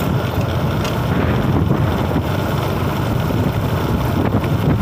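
Wind buffeting the microphone on a moving motorcycle, with the bike's engine running underneath as a steady low rumble.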